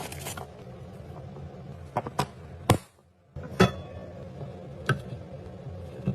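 Several separate sharp clicks and knocks of household containers, glass among them, being handled and set down, one ringing briefly like glass, over a low steady hum.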